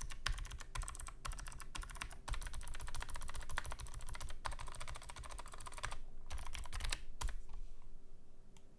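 Fast typing on a 60% custom keyboard with vintage Hi-Tek Series 725 black clicky switches, a dense run of sharp clicks broken by a few short pauses. The typing stops about a second and a half before the end.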